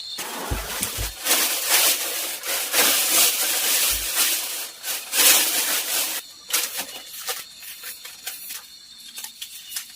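Rustling and scraping for about six seconds, with a few low thumps, then scattered clicks over a steady high insect chirr.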